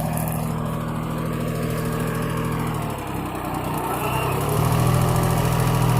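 Small tractor's engine running steadily. About three seconds in its note wavers and dips briefly, then it picks up again, running a little louder, as if under changing load.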